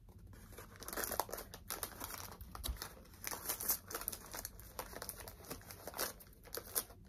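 Plastic toy packaging crinkling and rustling as it is handled and opened, a run of faint, irregular crackles.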